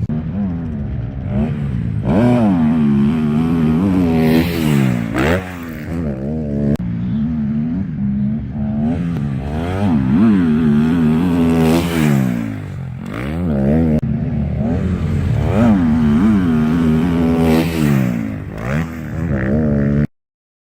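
Kawasaki KX250 motocross bike's single-cylinder four-stroke engine through an HGS aftermarket exhaust: running steadily at first, then revved again and again, its pitch climbing and dropping with each rev. The sound stops abruptly near the end.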